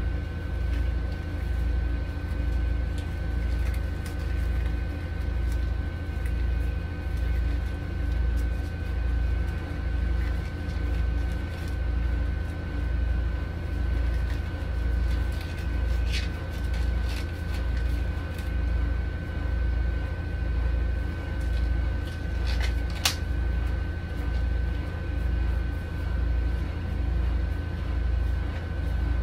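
Steady deep machine hum that swells and fades about once a second, with a faint steady high whine above it. A few short clicks come in the second half.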